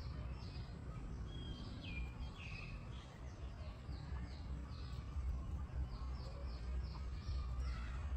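Small birds chirping, a quick string of short, high, falling chirps, over a steady low rumble of background noise.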